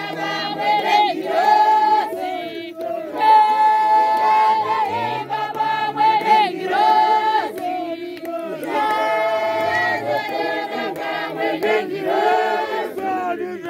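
A group of mostly women's voices singing a Shona church hymn together, with long held notes.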